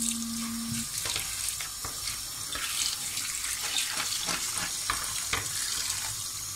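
Tap water running over dried plums, apricots and raisins in a stainless steel mesh colander, with hands stirring and rubbing the fruit under the stream, giving a steady splashing hiss with many irregular wet clicks and rustles.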